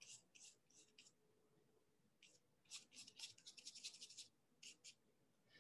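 Faint swishes of a flat paintbrush stroking across paper: a few separate strokes, then a quick run of short scrubbing strokes about three seconds in, and two more near the end.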